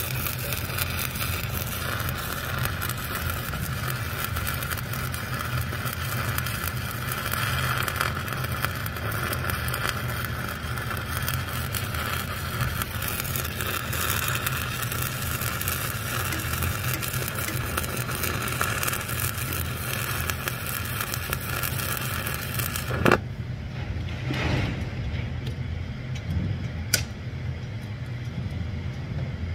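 Stick-welding arc from a 1/8-inch Lincoln Excalibur 7018 rod running an overhead fillet weld, with a steady crackle and hiss over a constant low hum. About three-quarters of the way through the arc breaks off abruptly, leaving the hum and a few sharp clicks.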